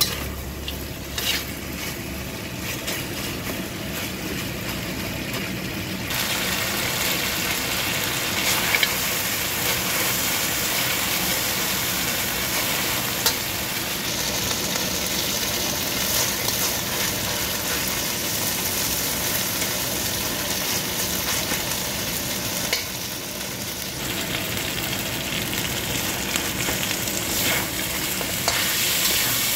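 Chicken pieces and onion sizzling in a hot wok while a metal spatula stirs and scrapes them, with scattered clicks of the spatula against the pan. About six seconds in the sizzle turns louder and hissier.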